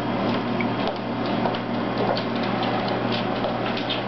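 Irregular light clicks and taps of footsteps on a wooden floor, a guide dog's claws and a person's shoes, over a steady low room hum.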